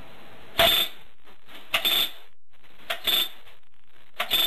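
Handmade wooden RotaryMek-12X rubber band machine gun firing four short bursts about a second apart, each a quick rattle of rubber bands snapping off the rotating barrel assembly. The barrel over-rotates a little after each trigger release.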